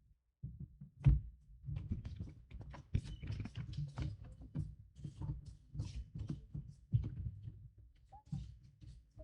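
Irregular low thumps and knocks, one sharper knock about a second in, with faint clicks and rustling between them.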